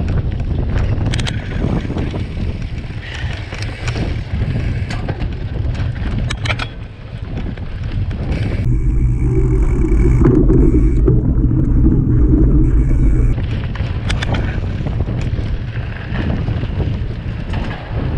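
Mountain bike riding fast over a dirt race trail: wind buffeting the handlebar-mounted camera's microphone and the bike rattling, with scattered sharp knocks as it hits bumps. For a few seconds in the middle the sound turns to a heavier, duller low rumble.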